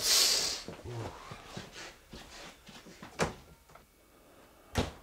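A loud, short rustle of clothing as a man turns and moves off, then two sharp knocks about a second and a half apart.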